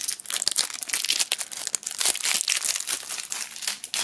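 Thin plastic shrink-wrap film being peeled off a lighter and crumpled in the hands: a dense, uneven run of crinkling crackles.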